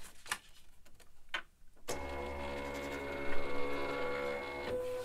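Silhouette Cameo 3 cutting machine's roller motor running steadily for about three seconds as it feeds the cutting mat through, a whine made of several steady tones, with a higher tone just before it stops. Before it, light clicks and rustling as the mat is lined up at the rollers.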